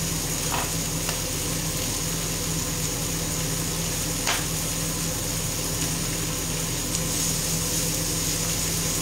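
Octopus, zucchini and cherry tomatoes sizzling steadily in a frying pan over a low steady hum, with two light clicks, one about half a second in and one about four seconds in.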